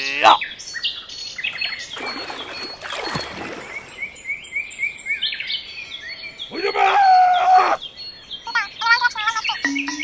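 Birds chirping and tweeting in short repeated calls. A loud falling sweep comes right at the start, and a louder, drawn-out pitched call of about a second comes about seven seconds in.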